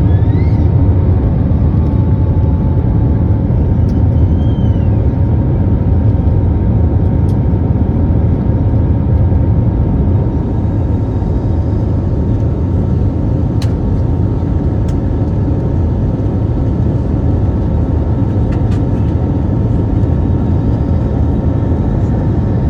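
Airbus A320neo jet cabin noise in flight after takeoff: a steady deep rumble of the engines and airflow, with a faint steady hum above it.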